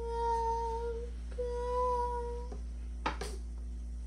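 A voice humming two long held notes, each about a second, the second a little higher, followed by a short knock about three seconds in.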